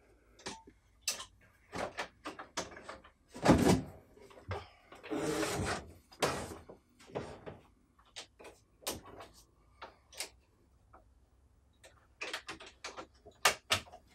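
Wooden flip-top workbench being turned over to bring a mitre saw up: a string of knocks and clicks from panels and latches, a heavy thump about three and a half seconds in, a rubbing scrape lasting about a second shortly after, and more knocks near the end.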